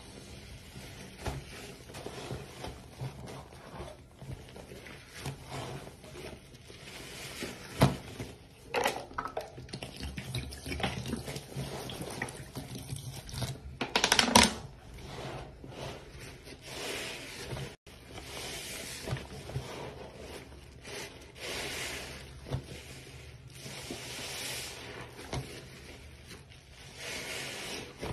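Tap water running into a sink while soap-soaked sponges are squeezed under it, the lather squishing and the water splashing in uneven surges. One louder burst comes about halfway through.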